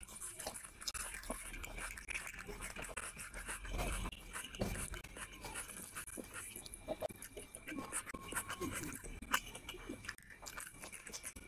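Close-up eating sounds of rice and fish curry eaten by hand: chewing and biting, heard as many irregular small clicks.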